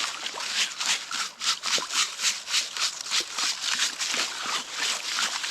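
River gravel rattling in a prospecting sieve as it is shaken in a steady rhythm, about four shakes a second.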